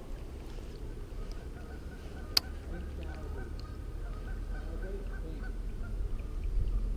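Fast-running creek water, with a few honking bird calls like geese over it and one sharp click about two and a half seconds in.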